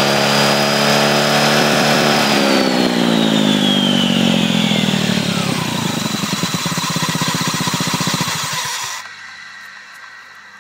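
Honda Ruckus scooter running with a high whine over the engine note. Then the engine and whine fall in pitch together as it runs down, and it stops about eight or nine seconds in. The owner takes the odd sound for a problem in the CVT variator.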